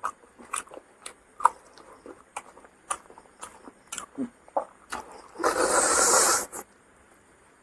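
Close-miked eating sounds: scattered small wet clicks and smacks of chewing, with a rush of noise lasting about a second, some five and a half seconds in.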